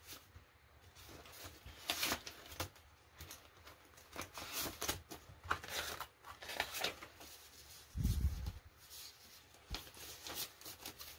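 Paper banknotes rustling and flicking as bills are counted and sorted by hand, in short irregular handling sounds, with a low thump about eight seconds in.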